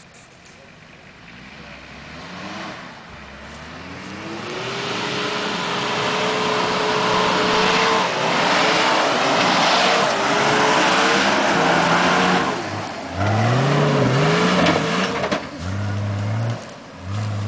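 Off-road 4x4 SUV engine revving hard while it drives through deep forest mud. The revs climb over the first few seconds, are held high for several seconds, then rise and fall in quick swings before easing off near the end.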